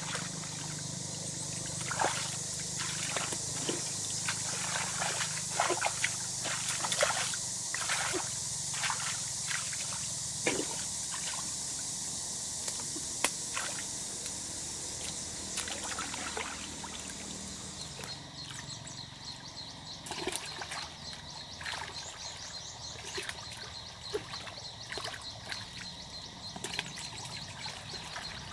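Water trickling and pouring, with many small splashes as someone works in shallow water. The steady rush of running water cuts out about two-thirds of the way through, leaving scattered light splashes.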